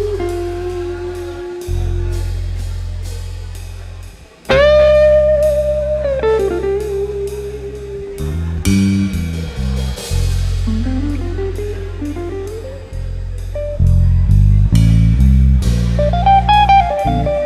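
Instrumental jazz-blues trio playing: guitar with sliding, bending notes over bass guitar and a drum kit keeping time on the cymbals.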